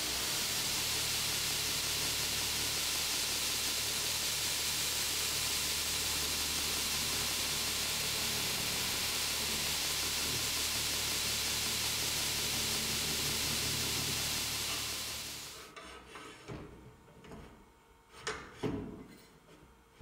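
Shop-built 2x82-inch belt grinder running unloaded: its 1.5 kW electric motor hums steadily under the hiss of the abrasive belt over its wheels. About fifteen seconds in it winds down and stops, followed by a few sharp knocks and clicks of the machine's metal parts being handled.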